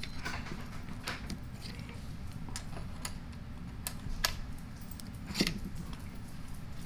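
Light clicks and taps, scattered a second or so apart, as rotor vanes are pushed into the slots of an Ingersoll-Rand 2131 air impact's rotor by hand, over a low steady hum.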